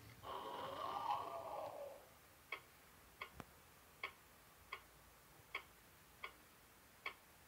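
Nissin Cup Noodle robot timer's small motor whirring for about two seconds as its arms fold back into the cup. It then ticks steadily from its speaker, a bit under one and a half ticks a second, with one sharper click among them.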